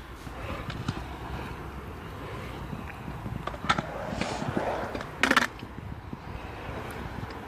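Small hard wheels rolling on concrete at a skate park, a steady rumble broken by a few sharp clacks, the loudest about five seconds in.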